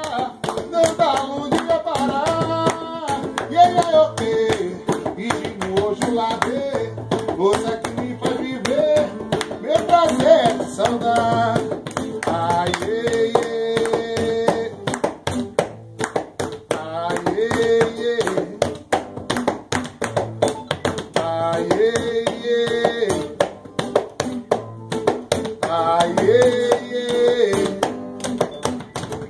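A man singing a song while beating a steady rhythm with his hands on a tabletop, the quick hand slaps running under the voice.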